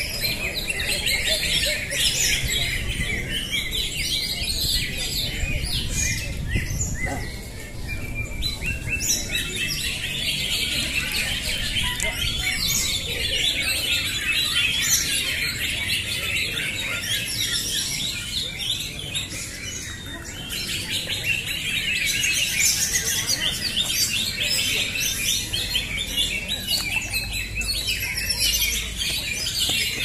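Many caged green leafbirds (cocak hijau) singing at once, a dense, continuous chorus of overlapping high chirps and warbled phrases.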